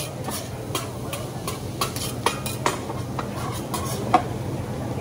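Food sizzling on a teppanyaki griddle while metal spatulas click and scrape against the steel plate in irregular strokes, with a sharper clack about four seconds in.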